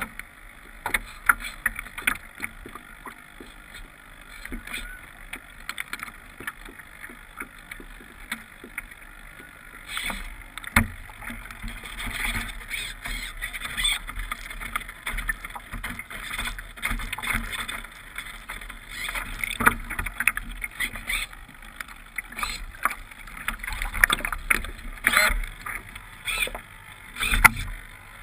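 Small water waves splashing and slapping against the hull of a Victoria radio-controlled sailboat under sail, heard close up from its deck, with irregular sharp slaps over a steady wash of water noise.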